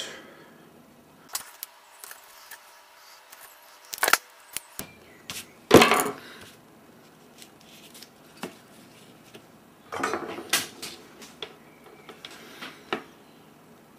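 Scattered small clicks, taps and knocks from handling a small circuit board and its parts: a ceramic capacitor pushed into the board by hand, the board turned over, and pliers touching its solder side. The loudest knock comes about six seconds in, with a cluster of taps around ten seconds.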